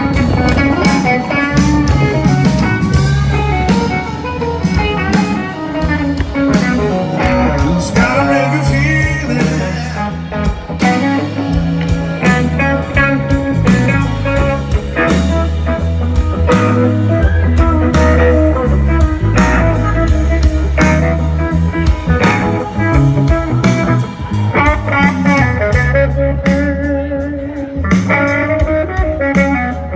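Live blues-rock band playing, with electric guitars to the fore over bass and drums.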